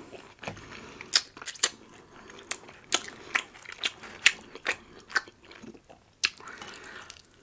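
Close-miked chewing and biting of crunchy food, with sharp irregular crunches about once or twice a second.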